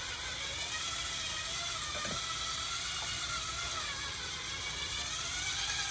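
Electric hand mixer running steadily, its beaters whisking raw eggs in a bowl, with a whine that wavers slightly in pitch.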